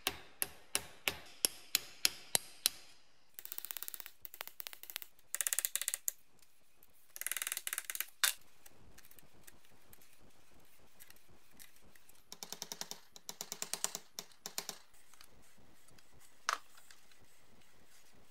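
Hand tools working a small steel part off the mincer's locking piece, which is clamped in a vise. First comes a run of sharp metal clicks, about three a second. Then come several rattling bursts of fast clicks, and a single sharp click near the end.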